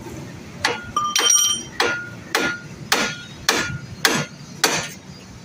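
Hammer striking the steel front wheel hub of a Hyundai Santro, about nine blows roughly every half second, each with a short metallic ring. The hub is being knocked loose, with rust on the parts, during a front wheel bearing replacement.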